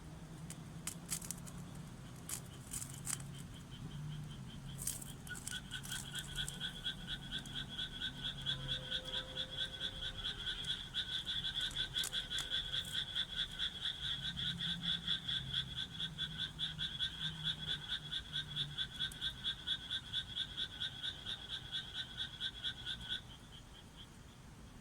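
A frog calling: a long run of quick, evenly repeated croaks, about three a second, that starts about five seconds in and stops suddenly near the end. A few sharp clicks come before it.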